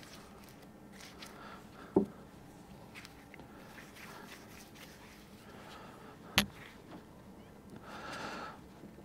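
Faint handling of small hydraulic piston and bushing parts: soft rubbing with light clicks, a short knock about two seconds in, a sharper click about six seconds in, and a brief rustle near the end as a part is set down on the work surface.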